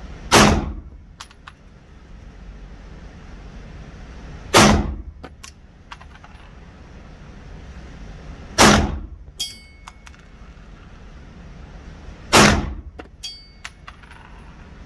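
Four single shots from a Glock 17 9mm pistol, fired slowly about four seconds apart in aimed fire, each followed by a few small metallic clinks.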